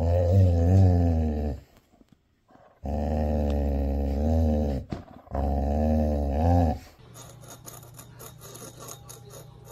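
A dog growling during tug-of-war with a rope toy, in three long, low, wavering growls with short breaks between them. After about seven seconds the growling stops, leaving only a faint steady hum.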